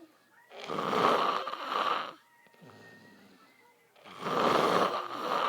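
A sleeping person snoring loudly: two long snores, about three and a half seconds apart, with quieter breathing between them.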